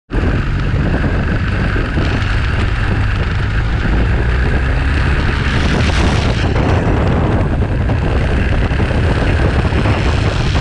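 Motorcycle riding at road speed, with wind rumbling heavily on the bike-mounted camera's microphone over the engine.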